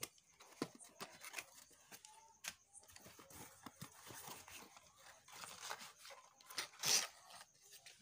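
Cardboard shipping box being opened by hand: flaps pulled back and packing tape torn, a run of short crackles and scrapes with one louder burst near the end.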